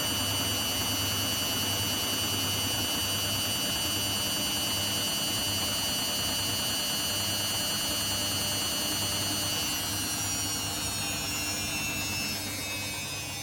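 Washing machine running, its motor giving a steady high whine over a low hum that swells and fades. About ten seconds in, the whine starts gliding downward and the sound gets quieter as the motor slows.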